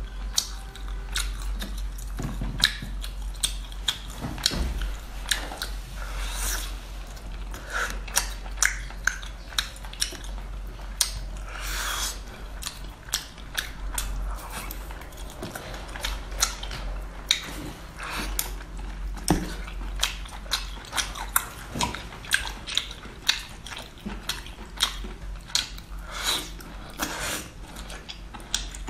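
A person chewing small octopus in sauce close to the microphone: wet chewing and sucking at the tentacles, with many short sharp mouth clicks.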